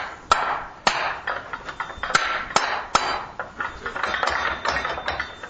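A series of sharp metal-on-metal knocks at an uneven pace, several loud and others lighter, each ringing briefly.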